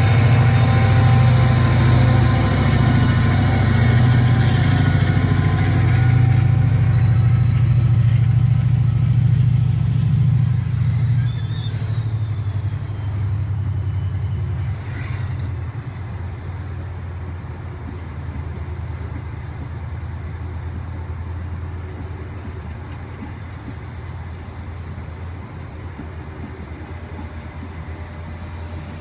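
Diesel locomotive pulling a passenger train past, its engine drone loud for the first ten seconds or so with a whine rising in pitch as it gathers speed. It then fades into the steady rumble of coaches rolling by on the rails, with one sharp click about halfway.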